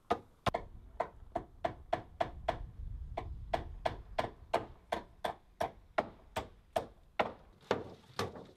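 Hammer driving nails into wooden roof boards: a steady run of sharp blows, about three a second.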